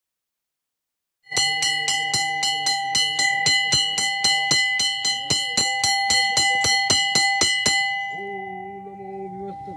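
A ritual bell rung rapidly during a puja, about four strikes a second with a steady metallic ring. It starts about a second in, stops a couple of seconds before the end, and its ring fades. A low steady hum comes in near the end.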